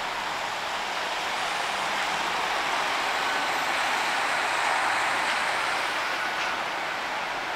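Steady hiss of traffic on a rain-wet street, tyres on wet road, swelling around the middle, as a Hino Blue Ribbon city bus moves slowly in to its stop.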